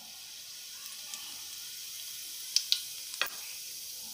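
Cumin seeds sizzling in hot oil in a kadhai: a steady frying hiss, with three sharp clicks about two and a half to three seconds in.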